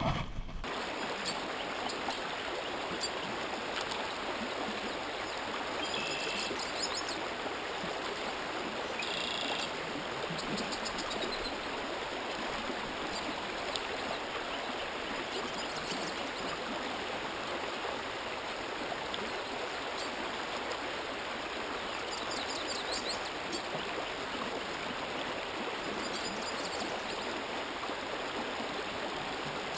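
Shallow trout creek running over riffles: a steady rush of water with no break.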